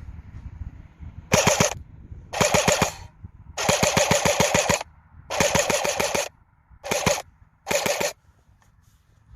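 Electric airsoft MAT-49 submachine-gun replica with a 3D-printed body, firing six short full-auto bursts of rapid clicks, the longest just over a second, with pauses between them.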